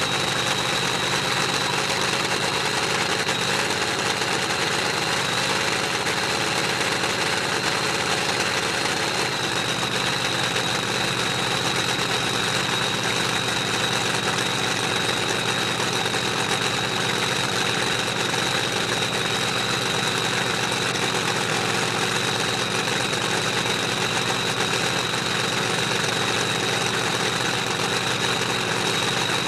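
A supercharged drag-racing engine idling steadily in the pits, with a steady high tone over it.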